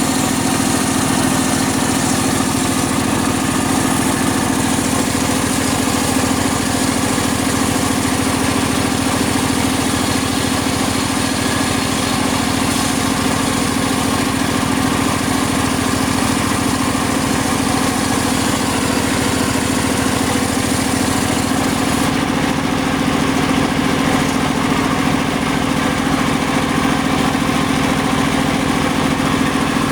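Circular-saw sawmill machine running steadily, with a constant loud drone.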